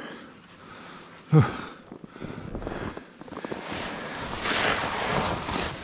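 Skis scraping and sliding across steep, firm snow, a rough hiss that builds to its loudest about four to five seconds in. About a second in there is a brief, loud sound that drops in pitch.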